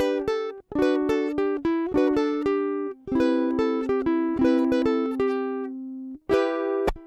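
Teton ukulele played fingerstyle: a quick run of plucked single notes over picked chords, in phrases broken by short pauses about every three seconds.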